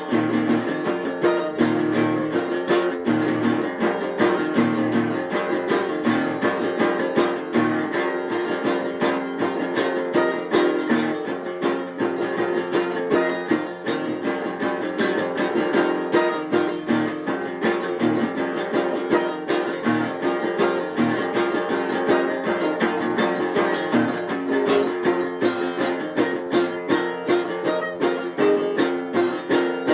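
Instrumental music of rapidly plucked strings, guitar-like, with a dense run of quick repeated notes.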